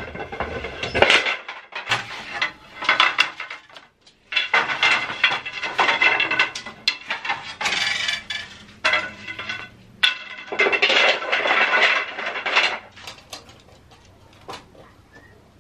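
A metal bed frame and its wooden slats clattering and clinking as they are handled and lifted off. There are repeated bursts of rattling with sharp knocks, and it goes much quieter in the last couple of seconds.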